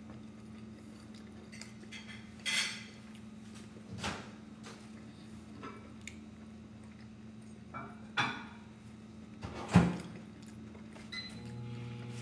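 Metal fork clinking and scraping against a glass baking dish as food is scooped up: a handful of separate short strikes, the loudest near the end, over a faint steady low hum.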